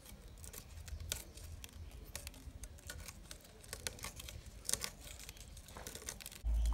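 Dried red chillies being broken up by hand against an upright metal blade, making faint, irregular dry crackles and clicks, with loose seeds tapping onto a metal tray. A loud low hum starts just before the end.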